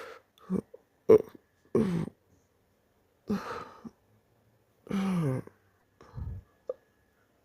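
A person's hiccups during a hiccup fit: a run of short, separate vocal jerks, the loudest and sharpest about a second in. Some are voiced and fall in pitch, like brief groans.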